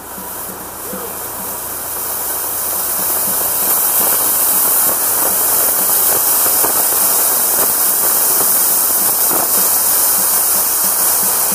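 Ground fountain firework (anar) spraying sparks with a loud, steady hiss that swells over the first few seconds and then holds.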